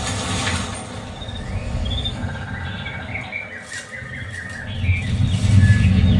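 Samsung Q-series soundbar playing a demo clip: short bird chirps and squawks over a deep bass rumble that swells louder about five seconds in.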